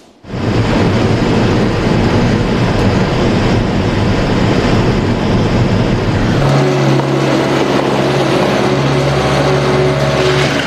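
Car driving by on a road, then, from about six and a half seconds in, a steady engine hum.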